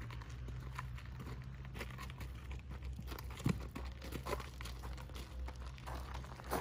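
A horse's hooves and a person's footsteps crunching on gravel at a walk, a run of light irregular steps over a low steady rumble.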